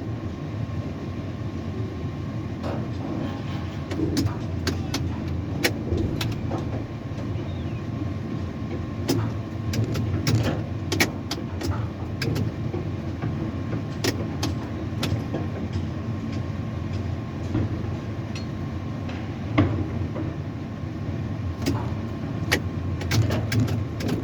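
Steady low mechanical rumble of tower crane machinery heard inside the operator's cab, with many sharp clicks scattered throughout.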